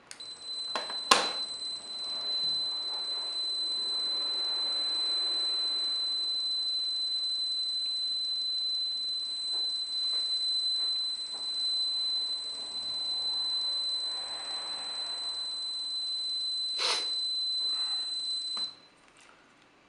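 Electronic buzzer on a remote-control receiver test board sounding one continuous high-pitched beep, which cuts off suddenly near the end. Two sharp clicks come through it, a loud one about a second in and a softer one shortly before it stops.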